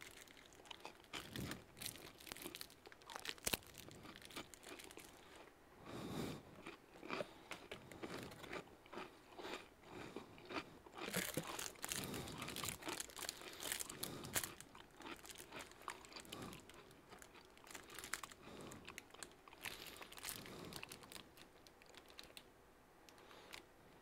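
Faint, irregular crunching and rustling: someone chewing a piece of chocolate close to the microphone while plastic tubs and a bag are handled, with scattered small clicks.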